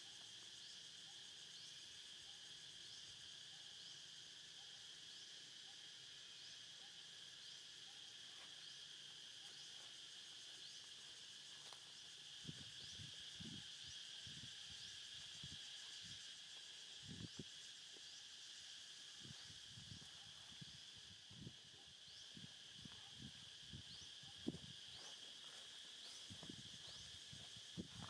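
Steady, faint chorus of insects with a short rising chirp repeating about once a second. From about halfway in there are scattered soft low thumps.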